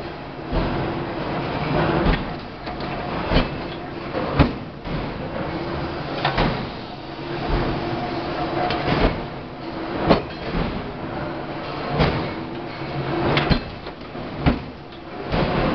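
Two-ton forging hammer striking a red-hot workpiece: about ten heavy, irregular blows, one every second or two, over a steady machinery din with a low hum.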